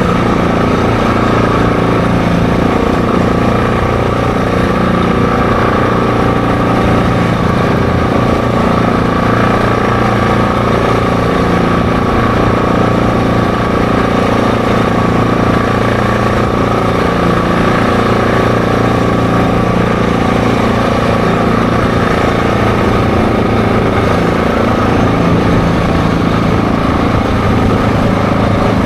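ATV engine running steadily at an even cruising speed, with wind rumbling on the microphone.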